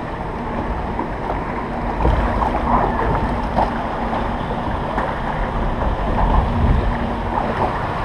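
Water rushing and lapping along the channel of a MACK Rides log flume as the log boat floats down it, with wind buffeting the microphone.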